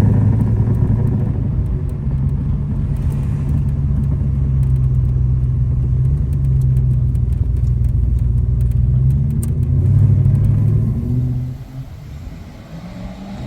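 A VK Commodore's V8 engine running steadily on the road with a deep rumble. About three-quarters of the way through, the engine sound drops away sharply and becomes much quieter.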